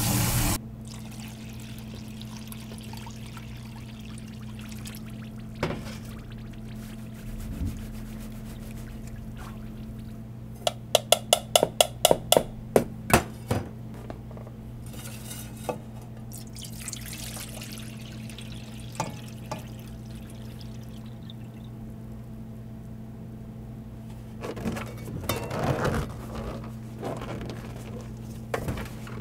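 Kitchen handling sounds over a steady low electrical hum: scattered knocks, and a quick run of about ten sharp clicks around the middle. Near the end, rustling as a gloved hand breaks up settled starch in a stainless steel tray.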